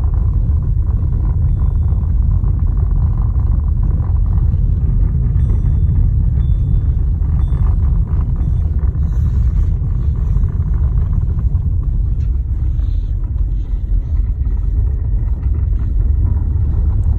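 Lada Vesta's electric power steering knocking repeatedly while the car drives, a sign of play in the steering unit, heard over a heavy low road rumble.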